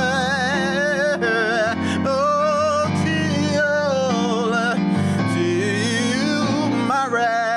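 A man sings a wordless gospel vocal run with wide vibrato, holding and sliding between notes, over sustained chords played on a Kawai MP7 digital stage piano.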